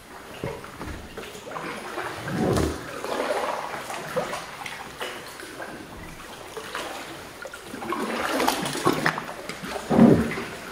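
Water splashing and sloshing around a paddled canoe at sea, in uneven surges, loudest about two and a half seconds in and again near the end.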